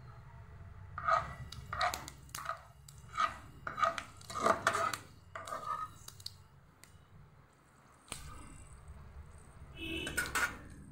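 Kitchen utensils clinking and knocking against a kadai: a container and spoon tapped on the pan, a string of sharp knocks over several seconds, then another short cluster near the end, over a low steady hum.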